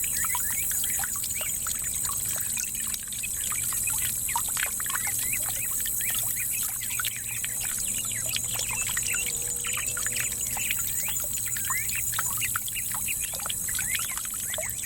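Small garden water fountain trickling and splashing steadily, with a constant high-pitched hiss above it.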